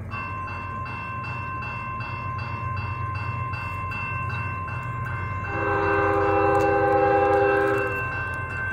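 Grade-crossing warning bell dinging steadily, about two to three strokes a second. About halfway through, an approaching CSX intermodal train's locomotive sounds its multi-note air horn in one long blast of about two and a half seconds, the loudest sound here.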